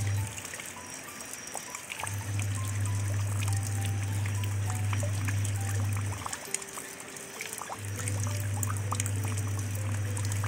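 Rain pattering into shallow water, many small drop splashes, mixed with soft music. A deep low note is the loudest sound: it cuts out just after the start, returns about two seconds in for roughly four seconds, then comes back again near the end, under a quiet melody of short notes.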